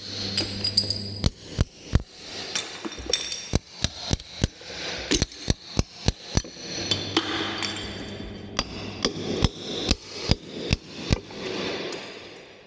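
Claw hammer striking a hand chisel in rapid, irregular blows, two or three a second, as the chisel chips ceramic wall tiles off their adhesive, with tile pieces cracking and clinking as they break away.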